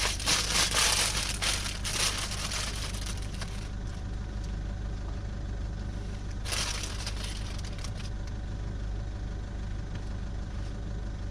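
Crisp lettuce leaves crunching and crinkling as they are handled, in a burst over the first three or so seconds and again briefly about six and a half seconds in, over a steady low hum.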